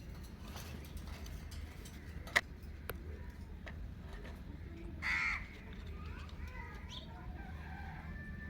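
Indian ringneck parakeet giving one short, harsh squawk about five seconds in, followed by a few faint chirps. A single sharp click comes about two seconds in, over a low steady hum.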